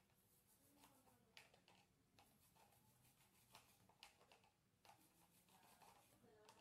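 Near silence, with faint, irregular clicks and light scrapes from a bicycle chain being scrubbed with a toothbrush wet with degreaser.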